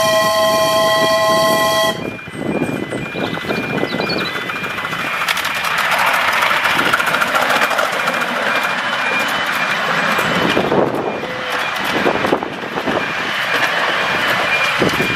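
Miniature steam locomotive's whistle blowing one long steady note that cuts off about two seconds in, then the train running past over the track. A faint regular beeping repeats throughout.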